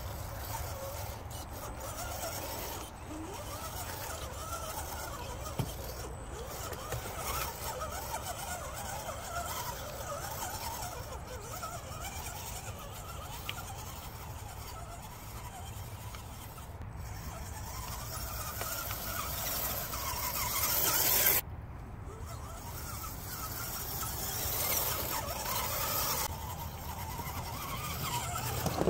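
Axial SCX10 1/10-scale RC crawler's electric motor and gear drivetrain whining as it crawls, the pitch wavering up and down with the throttle. The whine swells to its loudest about two-thirds of the way through, then cuts off abruptly.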